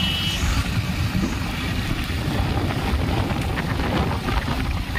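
Steady rumble of wind buffeting the microphone, with the road and running noise of the motorcycle it is riding on.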